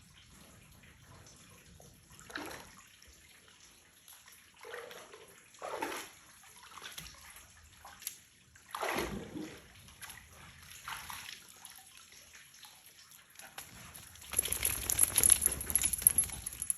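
A dog wading in a shallow pool, water sloshing and splashing in short bursts, louder for about two seconds near the end.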